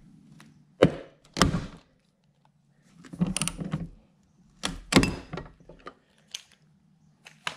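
Ratchet wrench and socket working the half-inch mounting bolts of a riding-mower deck spindle housing: two sharp metal knocks about a second in, then two bursts of rattling clicks, as the bolts snap off rather than come loose.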